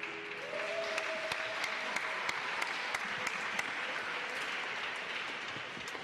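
Audience applauding at the end of a figure-skating program, a steady patter of many hands clapping.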